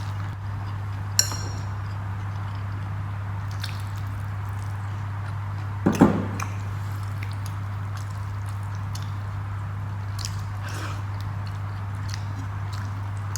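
Eating sounds from a meal of rice and dal: soft wet chewing and squishing with scattered small clicks, a brief sharp clink about a second in and a louder short clatter about six seconds in, over a steady low hum.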